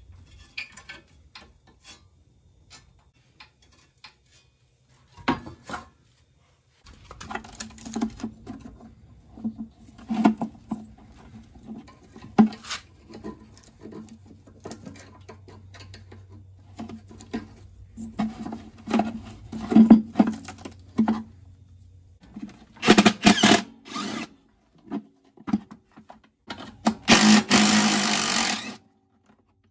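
Hand work on a dismantled ATV: light scraping ticks, then irregular clicks and knocks of plastic connectors and metal parts being handled. Near the end come two loud hissy bursts, each about a second and a half long.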